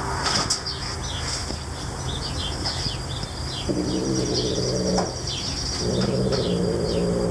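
Domestic tabby cat growling, two long drawn-out growls in the second half, a possessive growl as it guards a sparrow it has caught. Small birds chirp over and over in the background.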